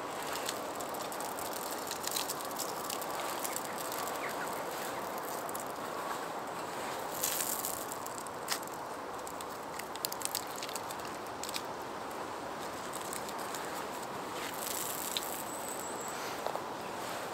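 Small wood-burning camp stove burning, a steady rush of flame with scattered crackles and pops from the burning wood. There are two brief hissing rustles, about seven and fifteen seconds in.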